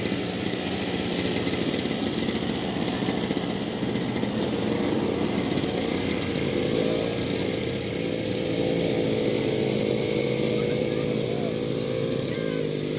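Snowblower's small gasoline engine running steadily, its pitch holding even through the second half.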